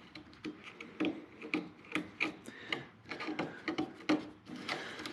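Old glue being peeled and scraped off a car's door mirror mount: short, irregular scraping and rubbing strokes, a few a second.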